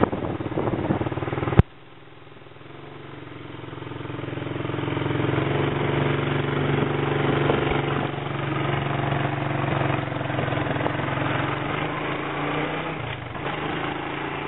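1984 Honda ATC 200M three-wheeler's single-cylinder four-stroke engine running steadily. About a second and a half in there is a sharp click; after it the engine sound is much quieter at first, grows steadily louder over the next few seconds and then holds.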